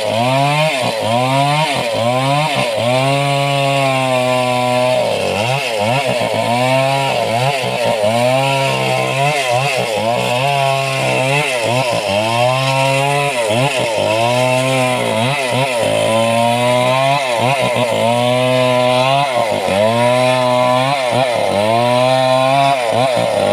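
Chainsaw cutting white teak wood. The engine's pitch sags under load and climbs back again and again, about once a second, as the chain is worked through the wood.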